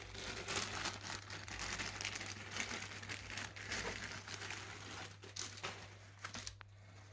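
Crinkling and rustling of the packaging of frozen sweet peppers as they are handled, running for about six seconds and fading near the end, with a few light clicks.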